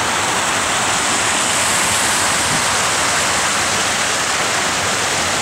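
Shallow mountain stream rushing fast over rocks and gravel after heavy rain, a steady loud wash of water.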